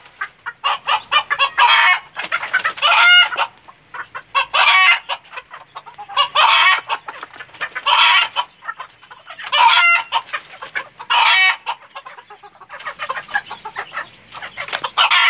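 Junglefowl-type roosters clucking and cackling in loud short bursts, one every second or two.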